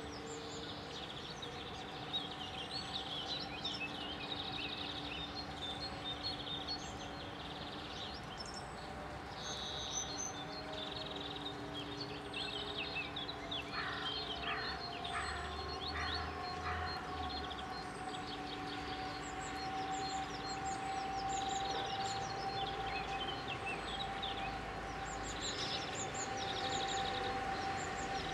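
Small birds chirping and calling over and over, over a steady distant hum. In the second half a drawn-out tone slowly rises in pitch and grows louder.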